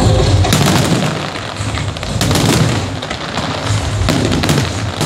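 Fireworks display: aerial shells bursting in a dense, continuous run of booms and pops, loudest in several clusters about a second apart.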